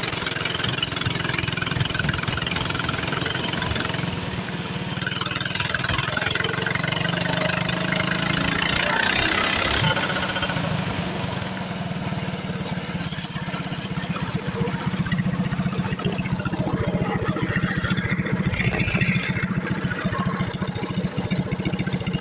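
Predator 212 single-cylinder four-stroke engine on a mini bike running, its speed rising and falling through the first half, then settling into an even idle for the second half.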